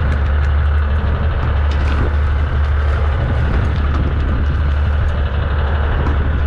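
A boat's engine running with a steady low drone, under a wash of wind and water noise.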